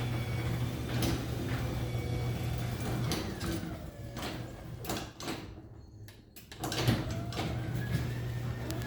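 Garage door opener driving a sectional garage door along its track: a steady motor hum with knocks about once a second. The sound drops away briefly a little past the middle, then resumes.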